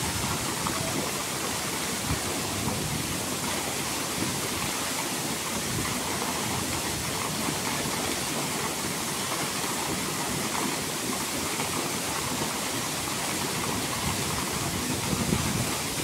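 Waterfall plunging onto rocks and into a pool: a steady, even rush of falling water.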